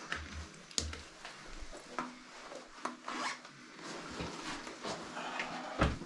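Outdoor gear being handled up close: rustling of clothing and pack fabric with irregular scrapes and clicks, and a few dull bumps against the body-worn camera.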